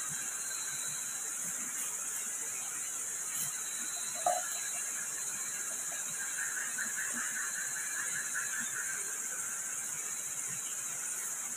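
Steady high-pitched chorus of night insects in the forest, with a single short clink about four seconds in and a faster pulsing trill joining in for a few seconds around the middle.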